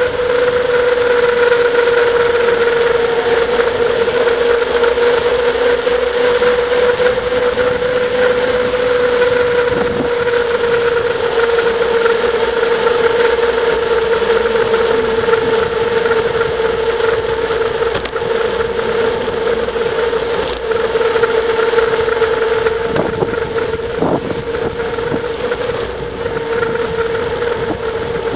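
Bicycle rolling fast downhill on tarmac: a steady hum from the tyres on the road, with wind rushing over the microphone. The hum holds one pitch that sinks a little as the ride goes on, with a few light knocks from the bike over road bumps near the end.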